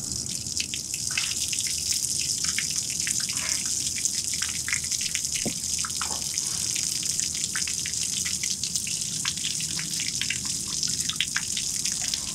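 Water from a garden hose spilling and splattering from a Suzuki 175 outboard's lower unit onto paving stones: a steady hiss with many small drips and splashes.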